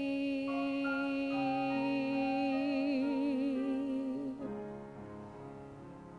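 A woman's solo singing voice holds the final long note of a slow ballad, wavering with vibrato near its end, over keyboard accompaniment. The voice stops about four and a half seconds in, and the accompaniment carries on more softly.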